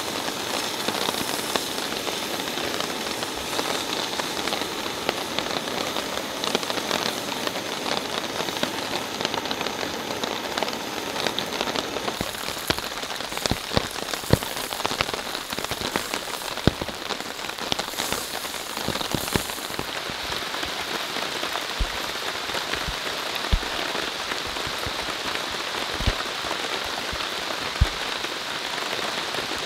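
Steady rain falling on a tarp shelter and the surrounding forest. From about halfway through, scattered sharp taps stand out above the rain.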